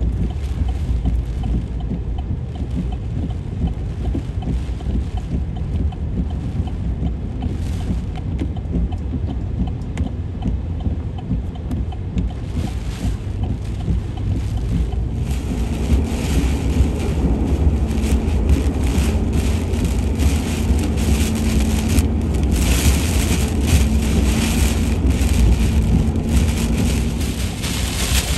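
Car driving through water and heavy hurricane rain, heard from inside the cabin: a steady low rumble of the car and its tyres on the flooded road. About halfway through, the hiss of rain and spray grows louder.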